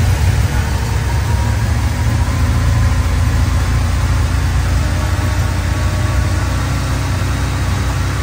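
GM Performance crate 350 small-block V8 with long-tube headers running steadily just after a cold start, fed by an oversized Holley carburetor that the owner says runs a little rich.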